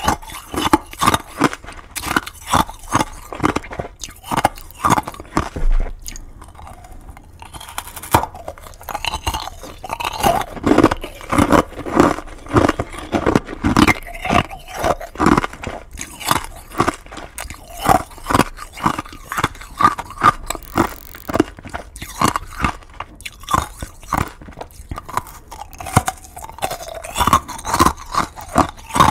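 Crunching, chewing-like sounds: a dense run of sharp, irregular crackles and clicks, several a second, with a short lull about six seconds in.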